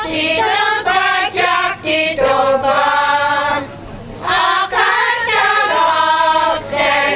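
Women's folk choir singing a Hungarian folk song unaccompanied, in sung phrases with a short breath pause about four seconds in.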